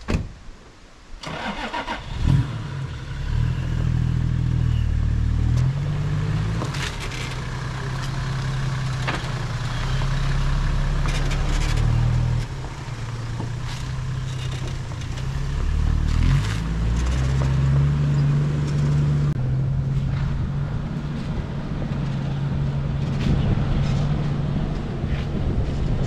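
A thump near the start, then the Toyota Land Cruiser Troopcarrier's engine starting about two seconds in and running as the vehicle drives off. The engine note steps up and down in pitch several times.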